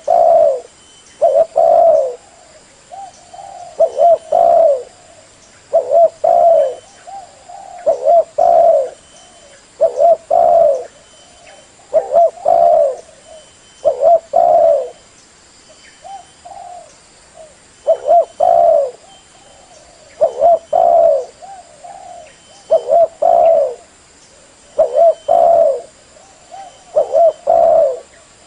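Spotted dove (tekukur) cooing over and over, a low phrase of several coos about every two seconds, in a recording used as a lure call for doves.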